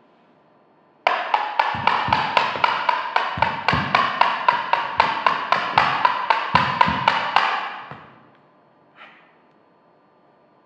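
Percussion music: a fast, even run of sharp pitched strokes, about four a second, with deep drum hits in short clusters. It starts abruptly about a second in and fades out after about seven seconds, followed by a single faint knock.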